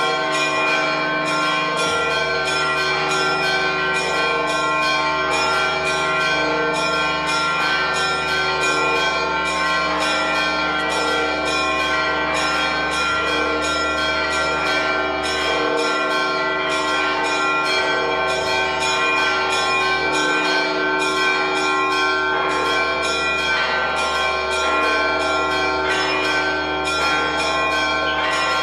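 Church bells ringing in a rapid, continuous peal, strike after strike over a steady wash of ringing tones.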